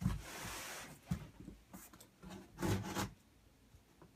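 A knife blade slicing through packing tape on a cardboard shipping box: a long scraping hiss in the first second, then shorter scrapes and bumps on the cardboard, with another stronger scrape near the end.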